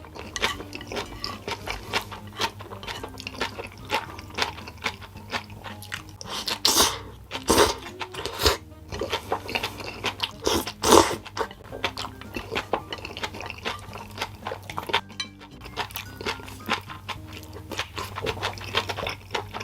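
Close-miked eating sounds: chewing and crunching in short irregular strokes, with a few louder crunches midway, over soft background music.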